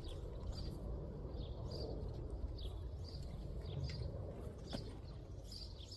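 Small birds chirping: short high chirps, several in each second, over a steady low rumble.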